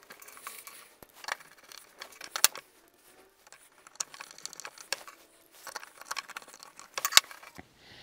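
Blum straight-arm steel cabinet hinges being handled and screwed onto a cabinet door with a hand screwdriver: scattered sharp metallic clicks and clinks, the sharpest about two and a half seconds in and again near the end.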